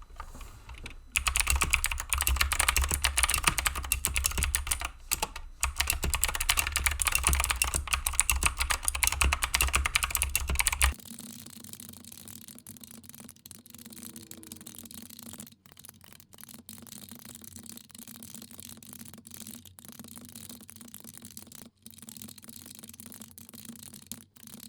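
Fast typing on a mechanical keyboard with clicky Akko Blue switches: a dense, rapid run of loud key clicks. About eleven seconds in, the sound drops suddenly to a much quieter, even texture with a steady low hum underneath.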